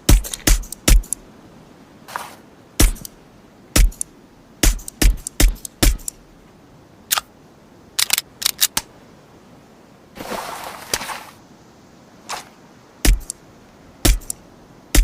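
Suppressed Heckler & Koch USP Compact pistol shots, fired singly and in quick strings of two to four sharp reports. About ten seconds in comes a longer hiss lasting about a second.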